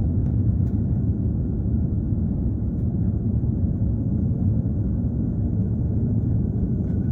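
Steady low rumble inside an airliner cabin just after touchdown, during the landing roll along the runway.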